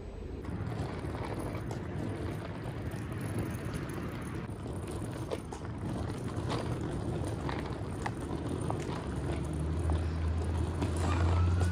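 Bicycle riding noise: a steady low rumble of wind and rolling on the road, with a few faint clicks, growing louder near the end.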